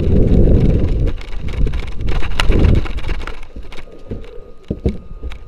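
Heavy rumbling buffeting on a body-worn camera's microphone as the wearer runs, mixed with footfalls and rattling gear. The rumble eases about three seconds in, leaving scattered sharp knocks and clicks.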